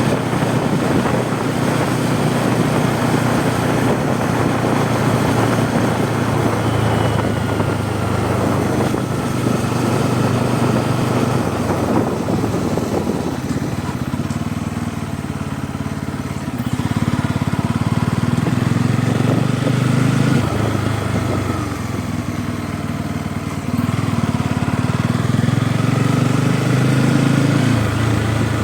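Bajaj Pulsar N250's single-cylinder engine and exhaust running under way, the engine note easing off and picking up again several times with the throttle.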